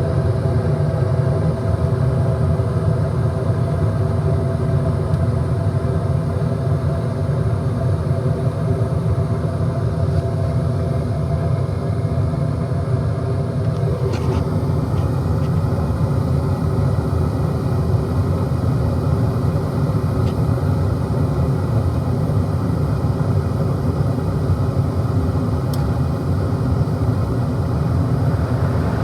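Comfortmaker gas furnace running: a steady low rumble with a hum above it. About halfway through there is a faint click, after which the hum grows weaker while the rumble carries on.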